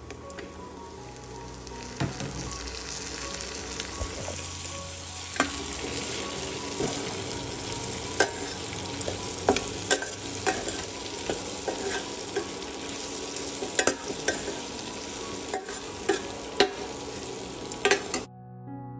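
Food frying in hot oil in a pan, sizzling steadily while a spatula stirs and scrapes it with frequent sharp clicks against the pan. The sizzle grows louder about two seconds in and cuts off suddenly near the end.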